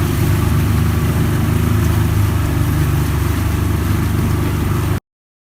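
Motorboat engine running steadily under way, a loud low drone with wind and water hiss over it. It cuts off abruptly near the end.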